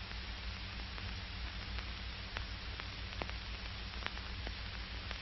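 Steady hiss and low hum of an old film soundtrack, with a few faint crackle clicks scattered through it.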